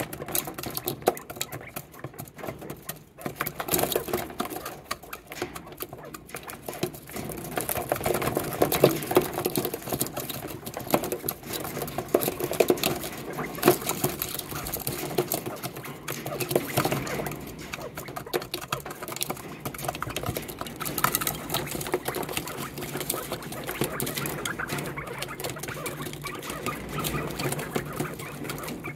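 Quail pecking at pellet feed in a plastic feeder dish: rapid, irregular tapping and clicking of beaks on the plastic and the feed.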